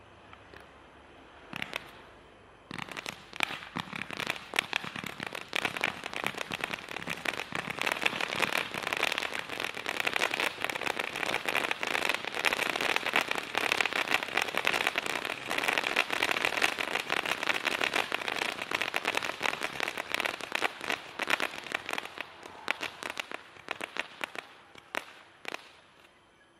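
Brothers Pyrotechnics 'Sassy' 600-shot 500 g fireworks cake firing: a couple of single shots, then from about three seconds in a rapid, dense stream of shots and crackling that thins out to scattered pops near the end.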